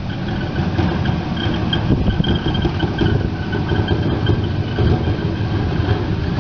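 Battery-powered Factory Cat 34 walk-behind floor sweeper running, its brooms spinning and brushing over brick pavers: a steady dense rumble with a faint steady high whine above it.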